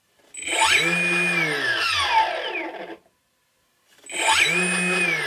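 Bait boat's thrower motor, driven through its electronic speed controller, run up twice in a test. Each run lasts about two and a half seconds: the whine climbs, holds, then winds down. The motor is working.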